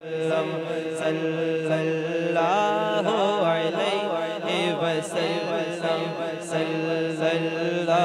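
Male naat reciter singing a devotional Urdu chant into a microphone, with long, wavering, sliding notes over a steady low drone.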